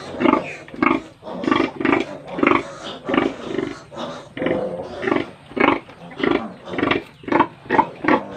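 Newborn piglets squealing and grunting as they jostle for the sow's teats while nursing, a steady run of short calls about two a second.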